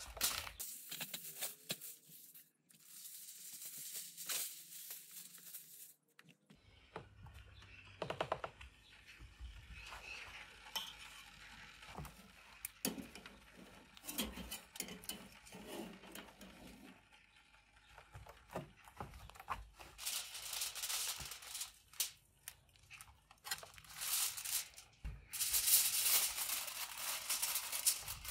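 Heavy 20-micron aluminium foil crinkling and rustling in irregular bursts as it is folded and pressed around a large cut of meat, loudest in the last few seconds.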